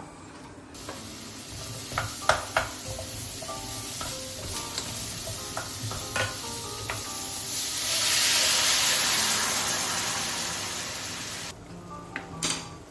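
Food sizzling as it fries in a pan, the hiss swelling louder in the second half and then cutting off suddenly, with a few sharp clicks of a utensil against the pan.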